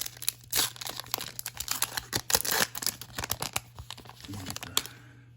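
A trading-card pack's foil wrapper being torn open and crinkled, a dense run of crackling and tearing that is loudest around the middle and dies away near the end.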